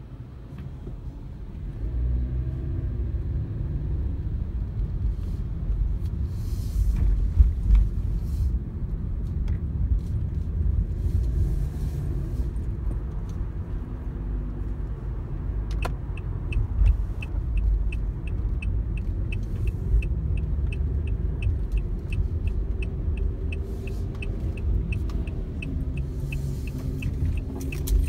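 Low rumble of a car's engine and tyres heard from inside the cabin while driving, growing louder about two seconds in. From about halfway through, a turn-signal indicator ticks steadily, about two to three ticks a second, for some twelve seconds.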